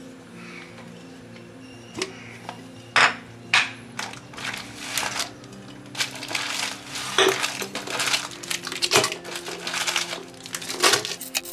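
A few sharp knocks as a glass jar and its wooden lid are handled and set down on a tile floor, the loudest about three seconds in. From about halfway on, wrapped chocolate bars rustle and crinkle as they are picked out of a cardboard box. Soft background music plays underneath.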